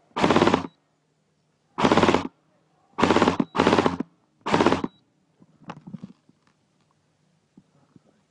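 Airsoft rifle firing five short full-auto bursts of about half a second each, the third and fourth almost back to back. They are followed by faint clicks and rustling.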